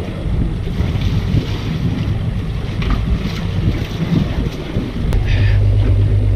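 Wind buffeting the microphone with waves washing around a small boat on open water. About five seconds in, a steady low hum takes over.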